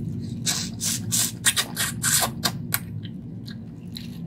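Plastic-gloved hands handling and pulling apart cooked crab: a quick run of sharp crackling and crinkling noises from about half a second in until nearly three seconds in, then quieter.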